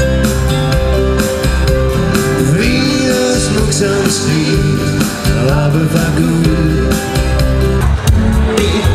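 Live dance-band music from keyboards through the PA speakers, with a steady beat and a pitched melody line. About a second before the end the music changes abruptly.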